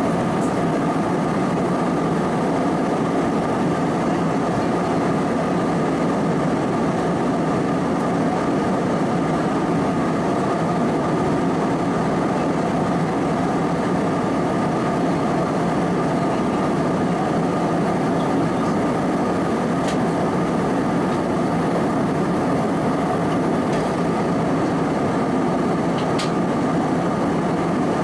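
Steady cabin drone of an Airbus A320-216 in cruise, heard from a window seat: its CFM56 engines and the airflow over the fuselage make an even, unchanging noise with a faint steady whine on top.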